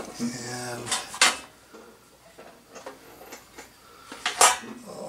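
Two sharp clacks of hard objects knocking together, about a second in and again near the end, from handling a caulking gun and a ceramic tile.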